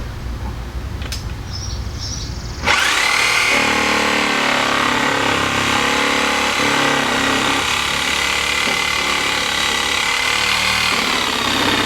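Electric power saw starting up about a quarter of the way in, rising quickly to a steady high whine as it cuts through a wooden 4x4 fence post.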